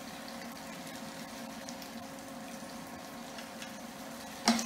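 Split baby corn sizzling steadily in a frying pan, over a steady low hum. Near the end, one sharp clatter of a utensil.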